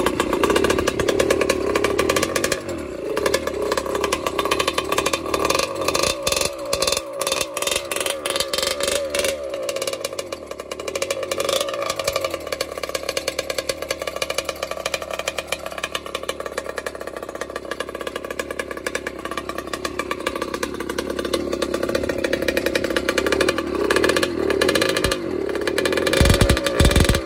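Water-cooled Minarelli AM6 two-stroke motorized-bike engine with iron-sleeved cylinder and case reed intake, running untuned at a fast idle, its speed rising and falling. Heavy low thumps come near the end.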